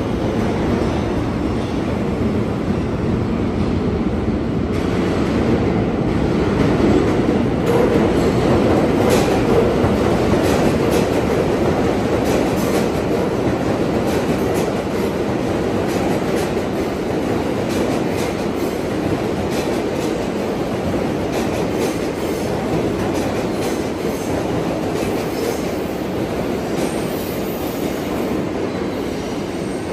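New York City subway train running through an underground station: a continuous rumble of steel wheels on rail with rapid clicking over the rail joints, swelling loudest about eight to ten seconds in.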